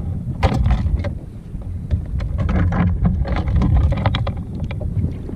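Wind buffeting the microphone on a kayak, a heavy low rumble, with frequent short splashes and knocks of water and gear against the hull.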